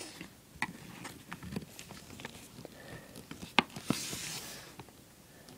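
Plastic clicks and light knocks of a Rubik's Cube being handled and twisted while it is worked at to be pried apart to the core, with a brief scraping rustle about four seconds in.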